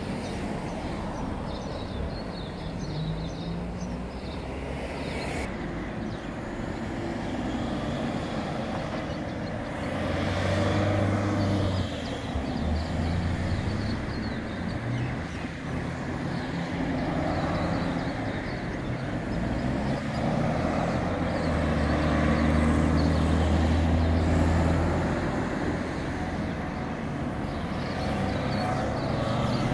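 Street traffic: cars driving past close by, a steady mix of engine hum and tyre noise. Two louder vehicles pass, one about ten seconds in and another from about twenty-two to twenty-five seconds in.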